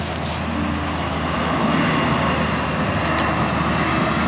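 Steady drone of a distant engine-driven vehicle, swelling slightly about two seconds in.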